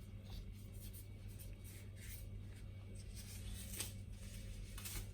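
Soft, scattered rustling and light handling noises as fresh herbs and other ingredients are added to a tagine, becoming more frequent in the second half, over a steady low electrical hum.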